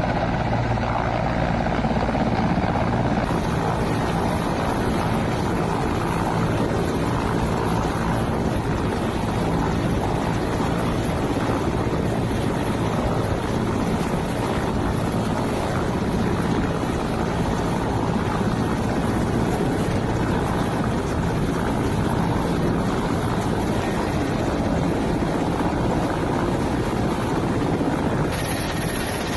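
A steady, loud mechanical engine drone that holds on without a break, with no speech over it.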